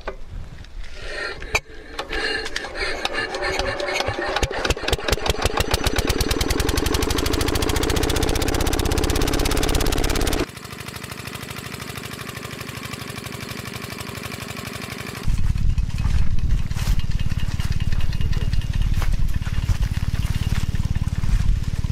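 Small diesel engine of an irrigation pump set being started, its firing beats speeding up over several seconds until it runs. It cuts off abruptly to a quieter steady sound, and a few seconds later a loud low rumble takes over.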